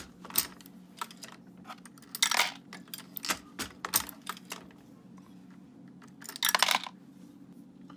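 Dillon 550 progressive reloading press being cycled by hand: a run of sharp metal clicks and clacks as the ram strokes and the shell plate indexes, with two longer clattering rattles, one about two seconds in and one near the end.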